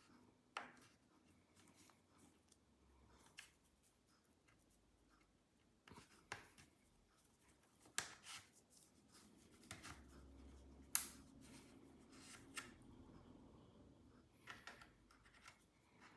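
Scattered faint clicks and light taps of plastic as pry picks work along the clips of a laptop's plastic rear hinge cover, the sharpest click about eleven seconds in.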